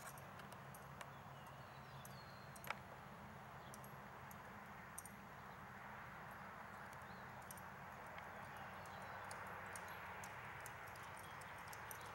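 Faint, muffled hoofbeats of a ridden horse moving over the soft sand footing of a riding arena, with a few scattered sharp clicks over a steady hiss.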